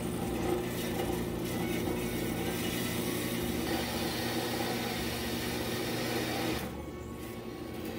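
Carolina HD10 horizontal metal-cutting band saw running, its blade cutting through steel angle with a steady motor hum under a hiss from the cut. About six and a half seconds in, the hiss falls away while the hum runs on.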